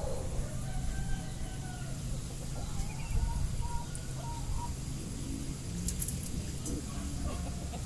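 A rooster crowing: drawn-out calls that rise and fall in pitch, over a steady low rumble.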